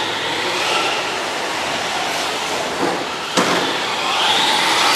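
Electric motors of 1/10-scale radio-controlled rally cars whining, rising and falling in pitch with the throttle as they drive around a dirt track. A single sharp knock comes about three and a half seconds in.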